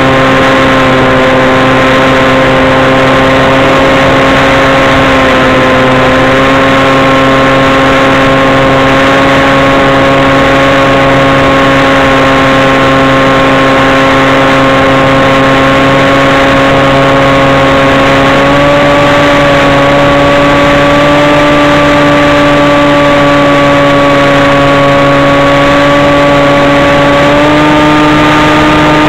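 Motor and propeller of a scratch-built FPV flying wing, heard through its onboard camera: a loud, steady drone over rushing air. The drone steps up slightly in pitch about two-thirds of the way through and again near the end as the motor speeds up.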